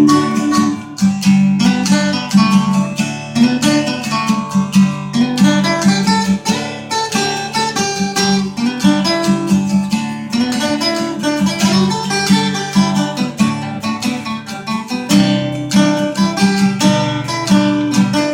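Acoustic guitar playing an instrumental break in a country song, with quick picked and strummed notes and no singing.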